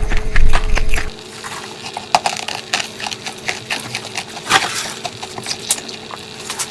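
Ice being bitten and crunched, a string of sharp cracking crunches. It is loud with a low rumble for about the first second, then drops to quieter, scattered crunches with a few sharper snaps.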